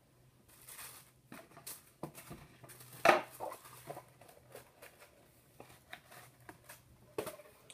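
Handling noises as items are moved and set down: scattered rustles and light clicks, with one sharper knock about three seconds in.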